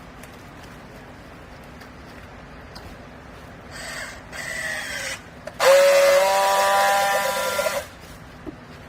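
Vertical rag baler running, its hydraulics whining twice over a low steady hum: a short falling whine about four seconds in, then a louder, steady whine with a hiss lasting about two seconds.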